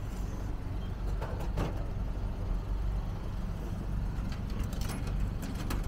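Coins clicking into a vending machine's coin slot, several sharp clicks in quick succession in the second half, over a steady low rumble.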